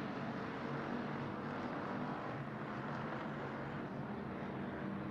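A field of IMCA Hobby Stock race cars running at racing speed: several engines blending into one steady drone.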